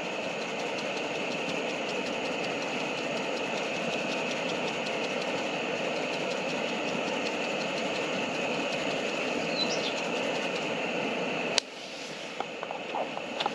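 Gas burner of a Cadac Safari Chef camp cooker running with a steady roar under the pizza pan. The noise drops off suddenly about twelve seconds in, followed by a few light clicks.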